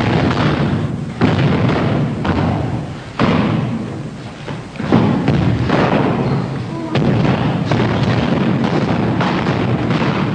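Bajiquan foot stamps (zhenjiao) struck on a wooden gym floor, a series of about eight heavy thuds at uneven intervals of one to two seconds, each ringing out in the large hall.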